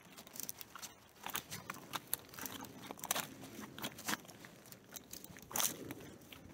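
Footsteps and rustling through dry grass and brush, a run of irregular crunches and crackles, with a louder rustle about five and a half seconds in.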